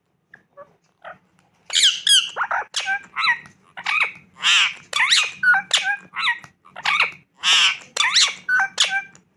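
Indian ringneck parrot calling in a quick run of short, high squawks and chirps, about two a second, starting about two seconds in.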